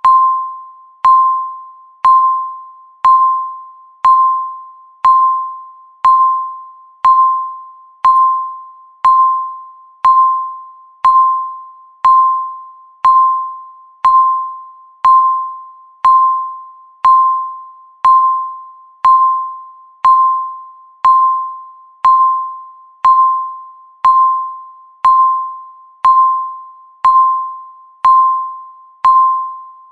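Countdown timer beeping once a second, a single mid-pitched electronic tone that starts sharply and fades away before the next beep.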